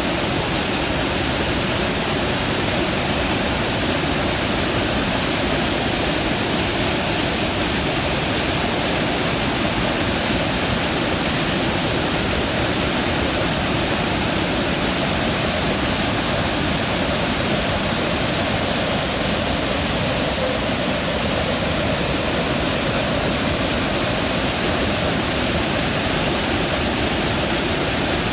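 The Rhine Falls, a large waterfall, rushing in a loud, steady, unbroken roar of falling water.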